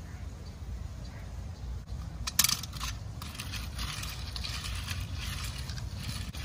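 Die-cast toy ambulance handled and set down on a glass tabletop: a sharp click a little over two seconds in, then light clicking and scraping as it is pushed along the glass, over a low steady rumble.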